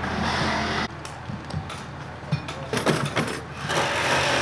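Rescue crew working on a car-damaged house front: a few sharp knocks and clatter, then a power tool running steadily from near the end.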